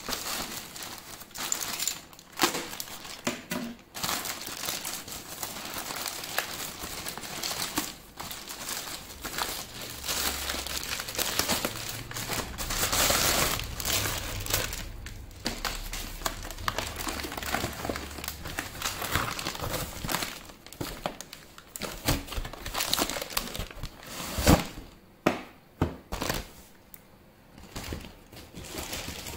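Plastic packaging crinkling and tearing as it is handled and pulled open, a continuous crackle broken by sharp clicks, with one loud snap about 24 seconds in and only a few faint clicks near the end.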